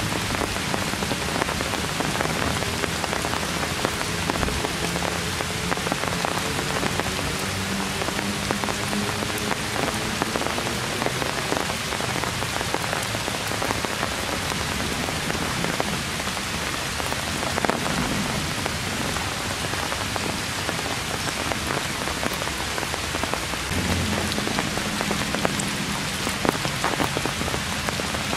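Heavy rain falling on forest foliage: a steady, dense hiss with many small drops ticking on the leaves.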